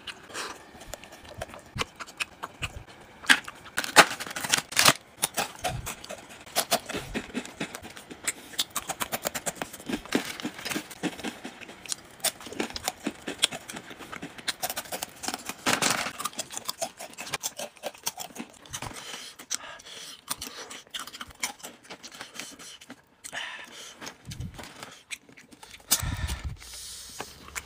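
Plastic snack packaging being handled and crinkled: a dense, irregular run of sharp crackles and clicks.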